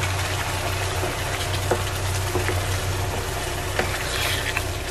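Water poured into a pan of simmering curd gravy with fish, splashing into the curry as it bubbles, with a wooden spatula knocking and scraping against the pan as it is stirred in. A steady low hum runs underneath.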